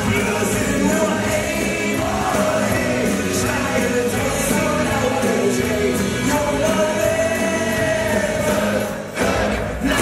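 A German carnival song sung into a microphone over backing music, with many voices singing along. The music dips briefly near the end.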